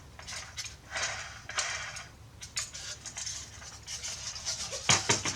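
Light clicks, rattles and rubbing from a small metal O gauge lumber car being handled, with a sharper clatter of knocks about five seconds in.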